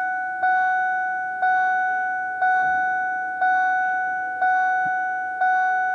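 Lincoln Navigator dashboard warning chime dinging about once a second after the key is turned to on, each ding fading before the next.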